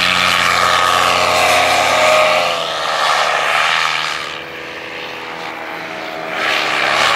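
Paramotor engine and propeller buzzing steadily as the pilot flies a low slalom course. It fades somewhat about four seconds in as the paramotor moves away, then grows louder again near the end.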